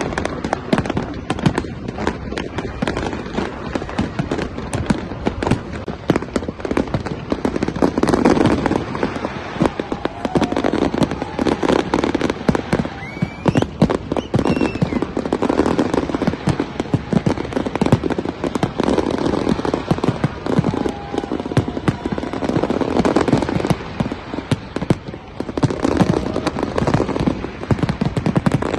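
A fireworks display: dense, continuous bangs and crackles overlapping one another, with crowd voices underneath.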